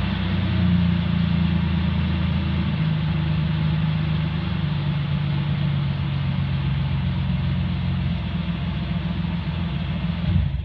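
A 2002 Ford Explorer Sport Trac's 4.0-litre V6 idling steadily through an exhaust with the muffler and resonator cut off, giving a deep, unmuffled note. The idle settles slightly lower about three seconds in.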